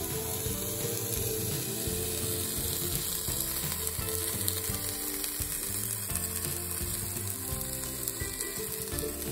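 Vegetables sizzling in a hot frying pan, a steady hiss, under rhythmic background music.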